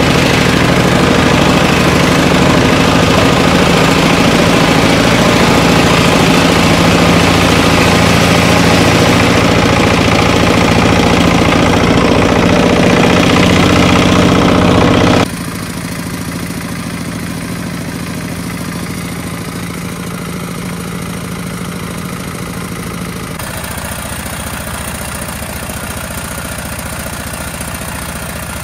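Single-cylinder diesel engine running steadily, loud and close. About halfway through the sound drops abruptly to a quieter, steady running sound.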